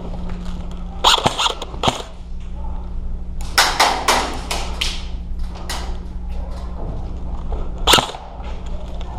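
Airsoft guns firing: a few sharp cracks about a second in, a quicker run of shots around the middle, and one more near the end, over a steady low hum.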